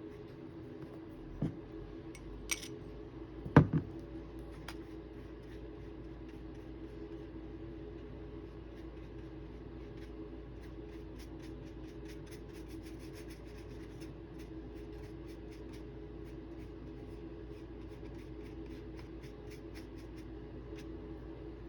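Small handling sounds on a desk: a few knocks in the first few seconds, the loudest about three and a half seconds in, then faint quick scratchy strokes over a steady low hum.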